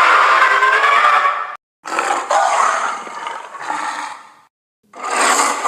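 Ceratosaurus monster roar sound effects: three separate rough roars played one after another, each cut off abruptly into dead silence. The first ends about a second and a half in, the second runs from about two seconds to four and a half, and the third starts near the end.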